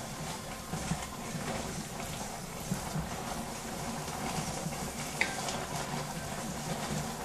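Beef strips cooking in their own released juices in a metal pot, a steady sizzle and bubble, stirred with a wooden spoon that clicks against the pot a few times.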